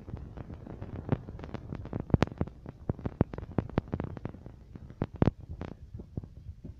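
Handling noise from a handheld camera or phone being moved: a low rumble under many irregular sharp clicks and knocks.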